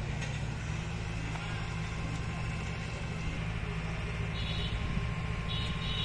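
Eicher Pro 6025T tipper truck's diesel engine running at a steady raised speed while its hydraulic hoist lifts the loaded dump body. Two short high beeps sound near the end.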